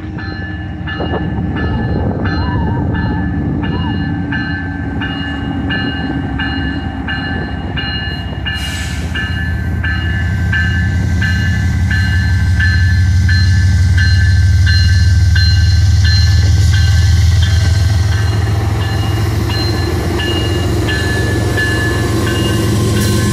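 CN diesel locomotives pulling a double-stack intermodal train past under power as it speeds up. The low engine rumble builds and is loudest about halfway through, as the locomotives go by. A railroad crossing bell rings about twice a second throughout.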